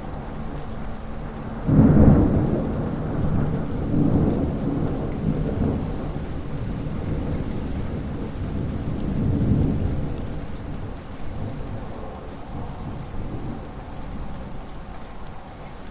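A thunderclap breaks suddenly about two seconds in and rolls on in low rumbling swells, over steady rain.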